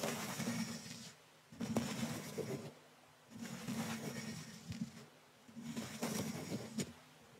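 Small brush bristles stroked against a microphone, a soft swishing about a second long, repeated four times with short pauses between strokes.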